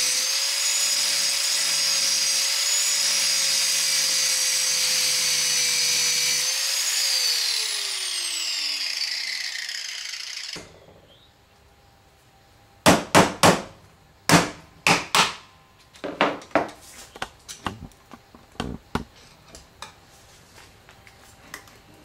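Angle grinder cutting through the welded seam of a microwave oven transformer's steel core, a steady high whine. About six and a half seconds in, it comes off the cut and winds down, falling in pitch until it stops. Then comes a string of sharp metal taps and knocks, loudest at first, as a hand tool is worked against the cut lamination stack.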